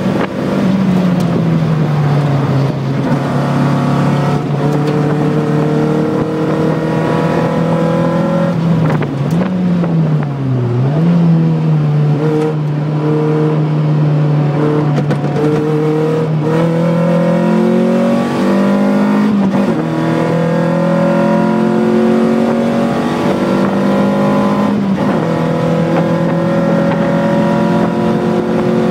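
Lotus Elise engine heard from inside the cabin while being driven on track: its pitch drops about a second in, dips and swings back up a couple of times around ten seconds in as the driver works the throttle and gears, climbs again around eighteen seconds, and otherwise holds a steady running note.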